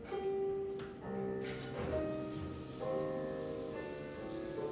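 Alto C ocarina of red clay playing a slow melody of held notes over a piano accompaniment, which joins with fuller chords about two seconds in.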